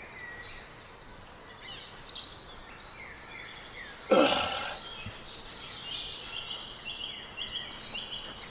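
Songbirds chirping and singing in a dawn chorus. About four seconds in, a man's short grunt of effort, falling in pitch, as he kicks up into a handstand.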